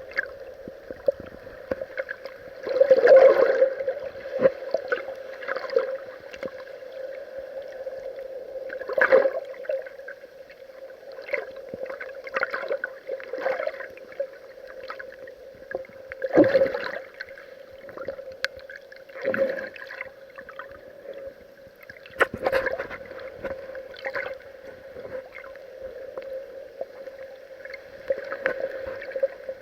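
Water sloshing and washing over an action camera's waterproof housing at the surface, heard muffled through the housing, with a steady hollow drone and louder surges every few seconds.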